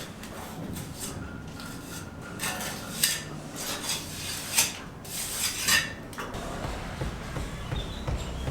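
Hard objects clattering and scraping in several short bursts, with a few sharp knocks in the middle of the stretch.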